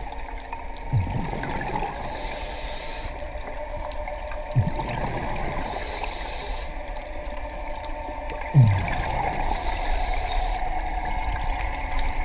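A scuba diver breathing through a regulator underwater. Each inhale brings a hiss and each exhale a bubbling gurgle, in a regular cycle about every four seconds.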